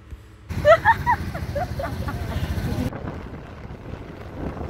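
Outdoor traffic noise with a brief high voice about half a second in. About three seconds in it changes abruptly to the quieter, steady rumble of road noise from a moving vehicle.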